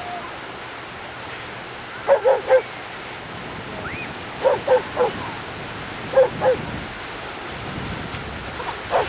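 A dog barking in short runs of two or three quick barks, a few seconds apart, over a steady rush of surf.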